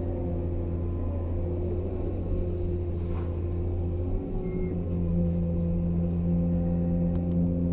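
Excavator's diesel engine running steadily, heard from the operator's seat, its note growing slightly louder about five seconds in.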